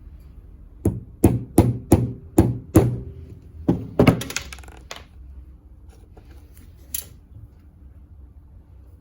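A series of sharp knocks: six evenly spaced strikes, about three a second, then a quick cluster of knocks and a single click a few seconds later.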